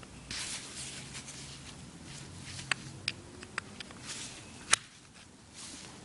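Screwdriver tightening the small metering-lever screw in a Stihl TS350/TS360 carburettor: faint scraping and rubbing with a few small clicks, the sharpest about three-quarters of the way in.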